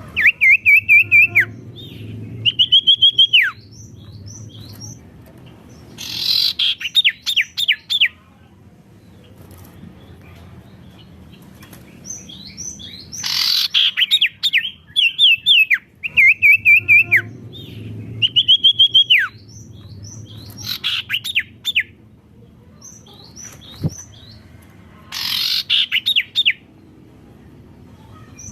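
A sirtu bird singing loudly in repeated bursts every few seconds: wavering trilled whistles, long downward-sliding notes and quick runs of falling chirps, the intense 'gacor' song used as a lure recording for other songbirds.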